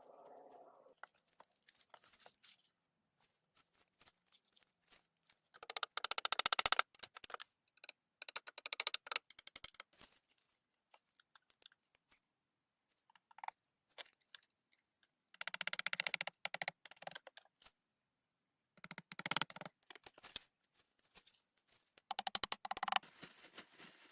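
Aluminum foil crinkling as food is wrapped in it and handled, in several short bursts of rapid crackling a few seconds apart.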